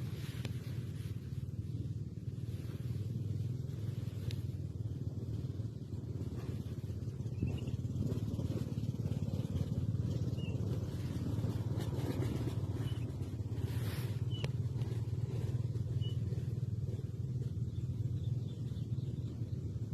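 Small fishing boat's engine running at a steady low drone, slightly louder from about eight seconds in.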